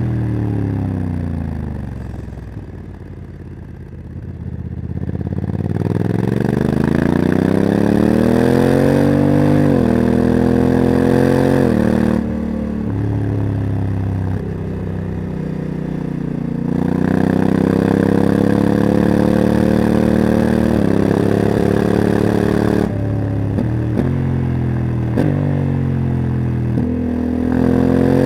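Honda CRF1100 Africa Twin's parallel-twin engine with a Leo Vince exhaust, ridden up a mountain pass with the dual-clutch gearbox. The engine note falls away off the throttle for the first few seconds, then builds under acceleration, the pitch stepping down abruptly at each automatic gear change; near the end it drops a few times in quick succession before rising again.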